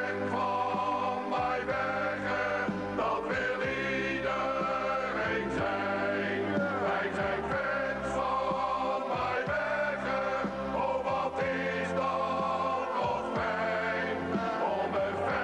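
A choir singing a song in a Soviet-style choral arrangement, over accompaniment with low bass notes that change every second or two.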